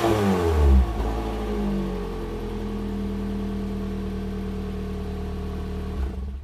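Toyota Voxy 80-series G's exhaust, with its factory sound-tuned sub-muffler and a muffler cutter, on a cold start. A rev falls back in the first second or so, and the engine then idles steadily until the sound cuts off just before the end.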